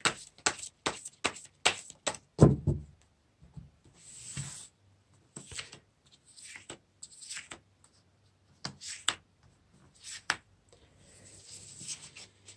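Tarot cards being handled: quick clicks, about five a second, as cards snap off the deck for the first two or three seconds, then soft sliding and rustling as the deck is spread out across a cloth-covered table and cards are picked out, with a few more clicks.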